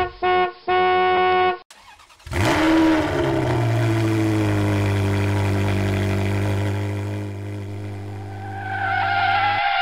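Two short tones, then a car engine catches about two seconds in, rises briefly in pitch and settles into a steady idle for several seconds. A wavering higher tone, the start of guitar music, comes in near the end.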